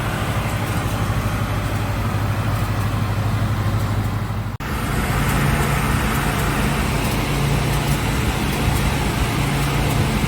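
Rojek BS 1100 wide-belt sander running, its 15 kW motor driving the sanding belts with a steady hum. About halfway through the sound cuts out for an instant and comes back with a slightly different hum.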